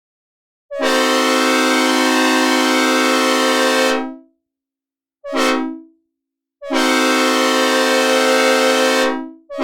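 Synthesizer recreation of a Leslie S5T five-chime locomotive air horn sounding a loud chord in separate blasts: a long blast of about three seconds, a short blast, a second long blast, and another short blast starting at the very end.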